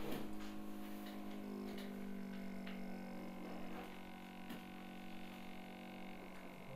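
A low steady hum with a few faint clicks.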